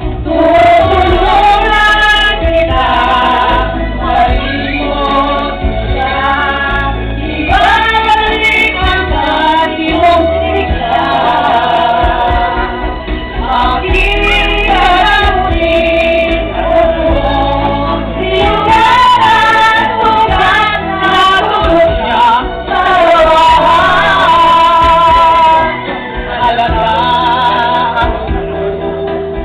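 Karaoke: a man and a woman singing into microphones over an amplified backing track, loud and continuous.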